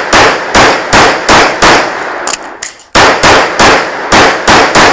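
Rapid pistol fire during a USPSA practical shooting stage: a fast string of about five shots, a break of about a second, then another fast string, at roughly three shots a second.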